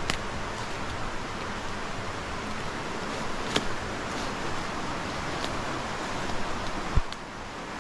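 Steady hiss of rain in woodland, with a few faint ticks and a single low thump about seven seconds in.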